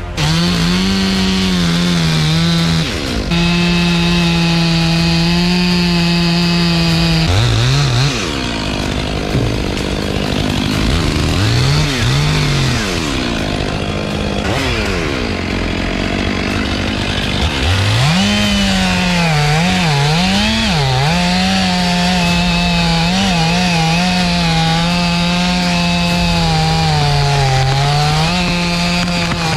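Stihl chainsaw making the back cut through a large poplar trunk, running steadily under load. Several times partway through, its engine note sags and climbs back up as the throttle is eased and reapplied.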